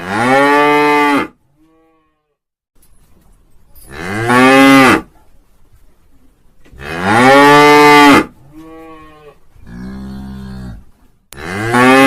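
Cattle mooing: loud, drawn-out moos of about a second each, roughly every three to four seconds, with two quieter, shorter moos in quick succession a little past the middle.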